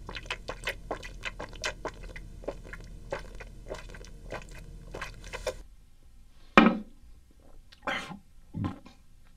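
A person gulping hot sauce straight from the bottle: a quick run of wet swallowing clicks for about six seconds, which then stops. Near the end come three short, loud bursts of breath.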